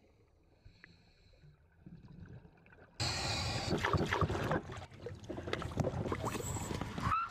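Near silence at first, then a sudden switch about three seconds in to loud, uneven water splashing and sloshing around a scuba diver at the surface beside an inflatable boat.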